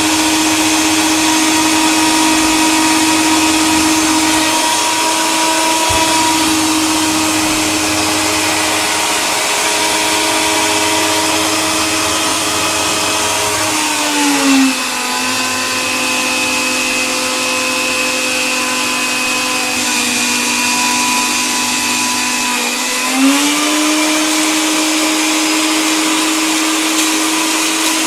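Electric coffee grinder motor running steadily with a high whine. Its pitch dips a little about halfway through and climbs back near the end.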